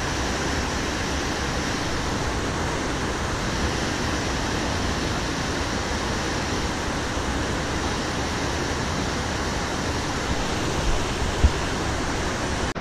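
Steady rushing of a whitewater rapid heard close from river level, with a couple of brief low thumps near the end.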